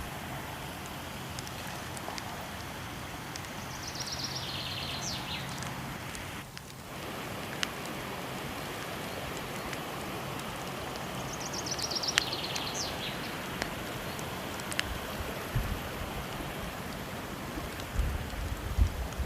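Steady rushing of falling water with the occasional sharp crackle and pop of a wood fire. Twice a bird sings a short trill of high chirps that falls in pitch.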